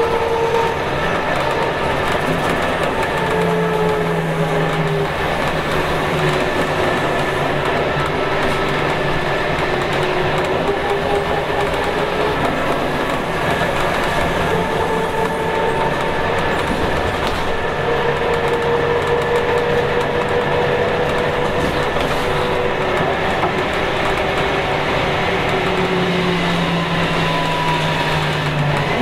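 Scania K280UB city bus under way, heard from inside the cabin: its rear-mounted Scania DC9 9.3-litre five-cylinder turbo diesel and driveline run steadily, with a whining note that rises slowly and drops away several times.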